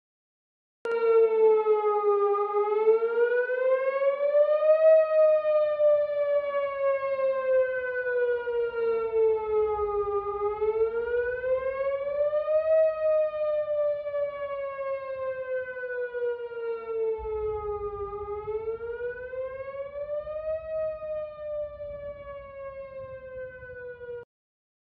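Outdoor tornado warning siren wailing, its pitch rising and falling slowly in about three long cycles. It starts abruptly, slowly fades, and cuts off suddenly near the end.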